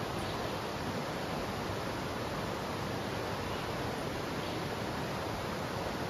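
Flowing river water: a steady, unbroken rushing.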